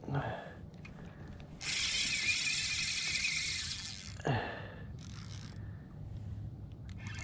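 Fishing reel's drag buzzing as a hooked school mackerel takes line, starting about a second and a half in and lasting about two and a half seconds.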